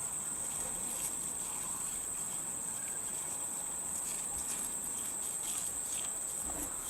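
Insects trilling in a steady, high-pitched drone, with a few faint ticks and rustles.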